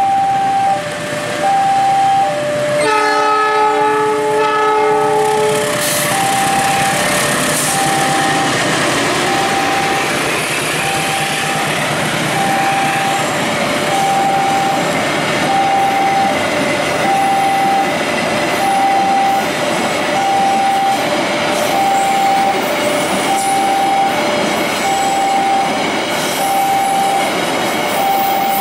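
Railway level-crossing warning alarm beeping in two alternating tones about once a second throughout. About three seconds in, a diesel locomotive gives one horn blast lasting a couple of seconds. After that, a train of fuel tank wagons rolls past with wheels clattering over the rails.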